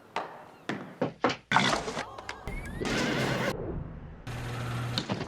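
A quick run of film sound effects cut together: several sharp knocks and thuds in the first couple of seconds, and a horse whinnying.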